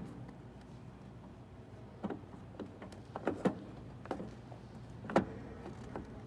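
Several short, scattered plastic clicks and knocks as a turn signal bulb socket is pushed and twisted back into a front lamp housing, over a faint steady low hum.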